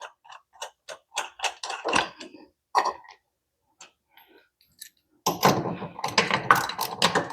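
Socket ratchet clicking in short irregular runs as golf-cart lug nuts are worked loose, the clicks coming thick and fast for the last two seconds.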